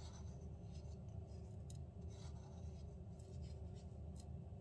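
Salt being tipped from a small glass jar into dry flour in a plastic food-processor bowl: a faint grainy, scratchy trickle with a few small ticks, over a steady low hum.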